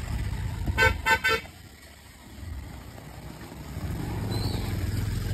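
A vehicle horn beeps three times in quick succession about a second in, over the low running of a motorcycle engine that drops away briefly and then builds again toward the end.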